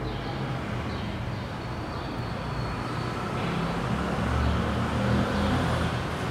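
Steady low rumble and hiss of background noise, with no distinct event standing out.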